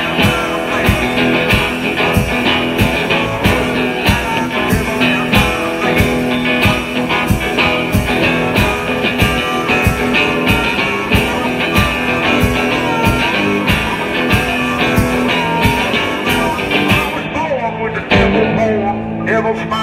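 Live blues-rock from a duo: an amplified harmonica plays over a drum kit beating a steady rhythm. Near the end the cymbals drop out for about a second before a strong hit brings the band back in.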